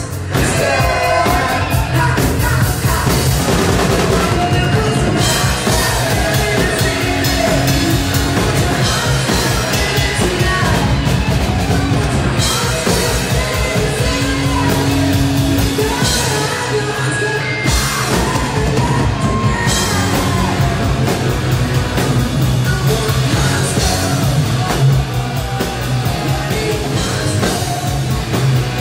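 Live rock band playing loud: electric guitar, drums and keyboards with singers at the microphones.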